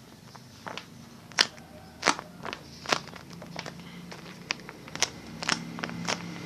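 Hands handling a foam squishy toy: light, irregular clicks and crackles, about a dozen scattered through, over a faint low hum.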